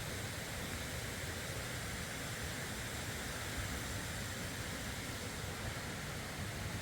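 Steady rushing of a flowing stream: an even, unbroken wash of water noise.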